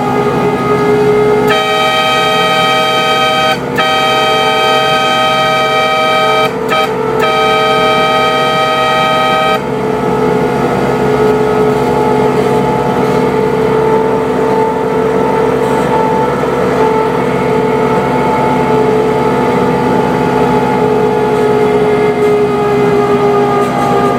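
80-horsepower diesel locomotive on a 15-inch gauge railroad running under power up a grade, its hydraulic drive whining steadily. From about a second and a half in, its horn sounds three long blasts with only short breaks between them, stopping about ten seconds in; the engine and the whine go on after it.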